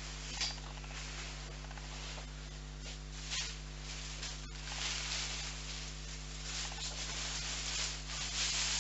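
Plastic sack rustling and crinkling as a sleeping bag is stuffed into it, getting busier and louder from about halfway through, over a steady low electrical hum.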